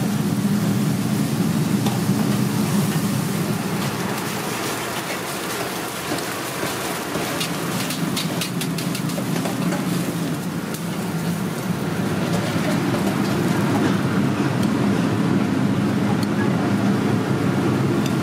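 Steady roar of a commercial kitchen's wok station, its gas burner and extractor running, with a run of light metal clinks from the ladle and perforated strainer around the middle.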